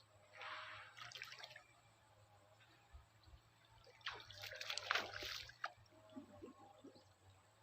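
Water splashing and dripping in a shallow drain as the water is disturbed during net fishing. There are two bouts, a short one right at the start and a longer, louder one past the middle.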